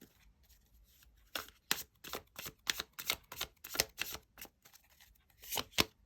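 Tarot cards being handled and shuffled: a run of about a dozen short, sharp papery snaps, two or three a second, starting about a second in.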